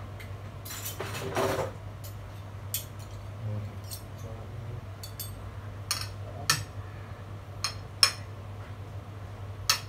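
Metal fork and spoon clinking and scraping against a plate of fried rice: a dozen or so short, sharp clinks at irregular intervals. A low steady hum runs underneath.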